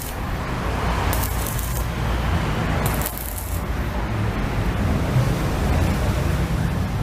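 Inverter arc welder welding along a seam: the arc gives a steady crackling hiss over a low hum, with two brief bursts of brighter hiss about a second and three seconds in.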